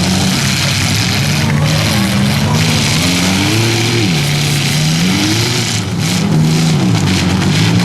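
Several demolition derby cars' engines revving up and down together, with scattered bangs and crunches of car bodies colliding.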